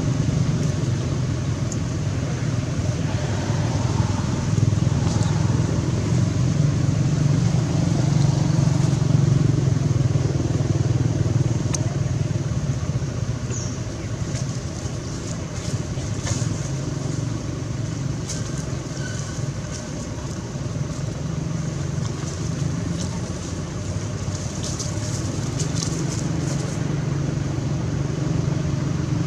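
Steady low rumble of motor vehicles, with a faint high hiss and a few scattered light clicks.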